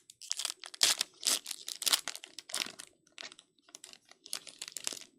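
Foil wrapper of a trading card pack being torn open and crinkled by hand: a run of irregular crackling and rustling bursts.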